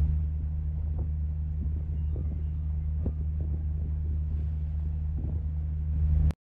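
A vessel's engine running with a low, steady drone and hum, cutting off abruptly near the end.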